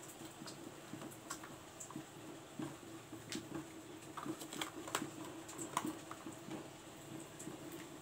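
Metal spoon scraping and tapping against a stone mortar, in irregular light scrapes with a few sharper clicks, over a faint steady hum.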